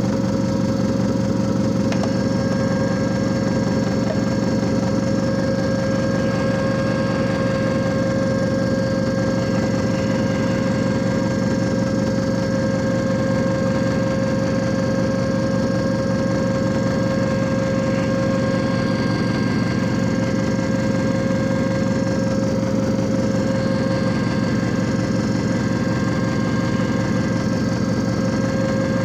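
JFJ Easy Pro disc repair machine running: an even motor hum with a clear steady tone over it, unchanging throughout.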